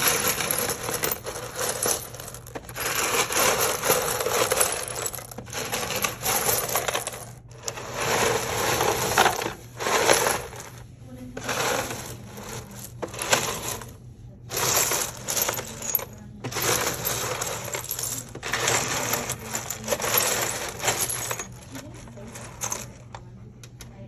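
Broken ceramic tile shards clinking and rattling against each other as a hand rummages and stirs through them in a plastic tub. The sound comes in stretches of a second or two with short pauses and dies down near the end.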